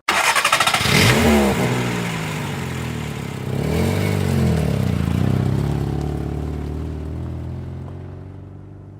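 A car driving past: it starts abruptly and loud, the engine note sweeping down in pitch as the car passes. About four seconds in, the engine revs up and back down once, then a steady engine note slowly fades away.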